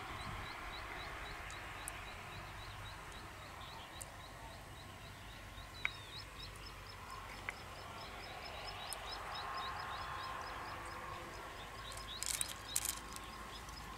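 Steady rush of river water with a high chirping call repeating about four times a second. A few sharp clicks sound through it, and there is a short clatter near the end.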